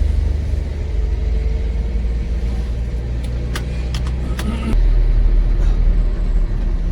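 Car on the move: steady low engine and road rumble, with a few sharp clicks near the middle. The rumble grows louder about two-thirds of the way through.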